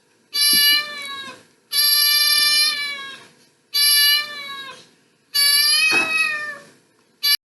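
Domestic cat meowing: four long meows in a row, each a little over a second long, with short pauses between them.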